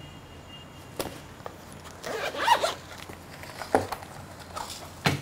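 Packaging of a camera-flash accessory kit being handled: light clicks and knocks, and a short rasping, zip-like sound about two seconds in.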